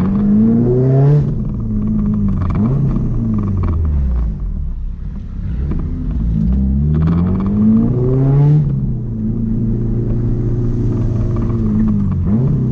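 Car engine accelerating hard twice: the revs climb, drop back, then climb again, then settle to a steadier note.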